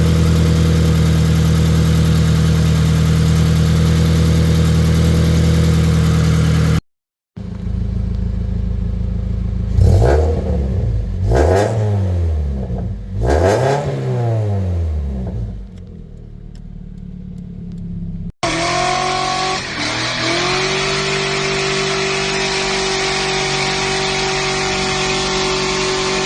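Scion FR-S 2.0-litre flat-four boxer engine breathing through a newly fitted equal-length header, run to check the new header for exhaust leaks. It idles steadily, then after a short break is blipped three times, revs rising and falling, before settling back to a quieter idle. After another abrupt break it runs steadily again, rising a little in pitch.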